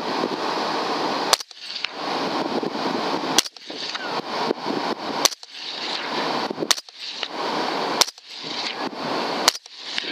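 Six rifle shots from a .300 Ham'R, fired about every one and a half to two seconds, with a steady hiss between them.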